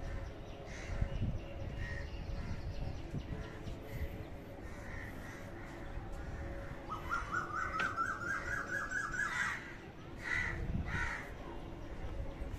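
Crows cawing now and then, with a rapid trill of repeated notes lasting about two seconds in the middle.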